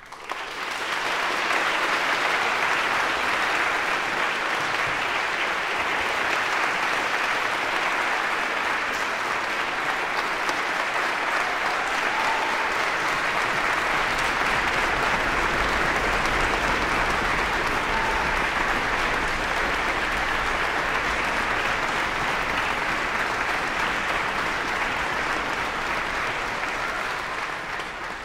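Concert audience applauding. The applause breaks out suddenly, swells to full within about a second, holds steady, and begins to fade near the end.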